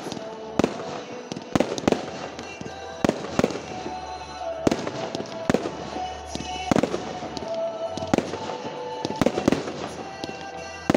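Fireworks display: a dozen or so sharp bangs from bursting shells, spaced unevenly about a second apart, with music playing underneath.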